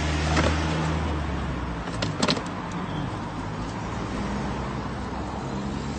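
Car engine idling with a low, steady hum, plus a couple of sharp knocks about half a second and two seconds in.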